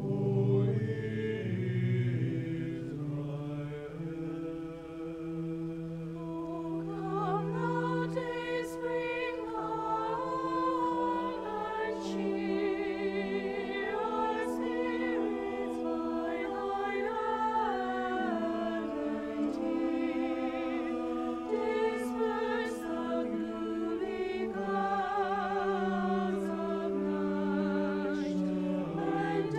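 Church choir singing an anthem with organ accompaniment, long held notes with vibrato in the voices over steady sustained chords.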